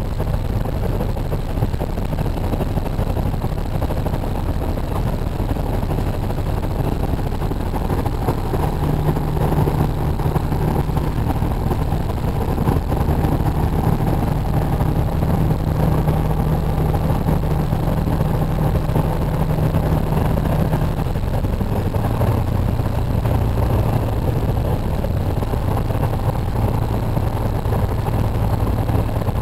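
Semi-truck's diesel engine and road noise inside the cab while driving, a steady drone. About three-quarters of the way through, the engine note drops to a lower pitch.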